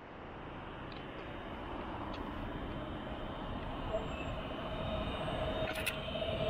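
Translohr rubber-tyred tram approaching on its guided track, its running noise growing steadily louder. About four seconds in, a steady whine comes in and strengthens as the tram nears.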